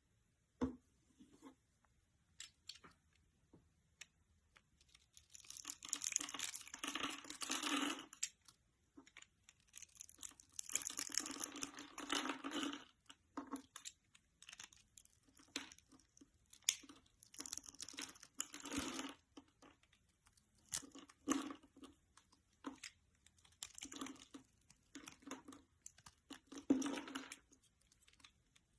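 Close-up crinkling, tearing and crunching sounds in bursts of a few seconds, with many short clicks and crackles between them.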